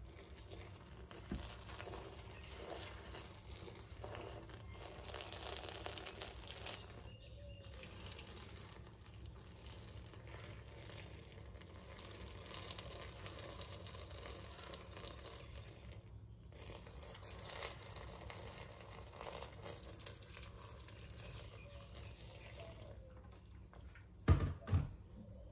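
Hot water poured in a steady stream into a stainless-steel pressure-cooker pot over rolled stuffed grape leaves, splashing as it fills, with two brief pauses in the pour. The pouring stops near the end, followed by two sharp knocks.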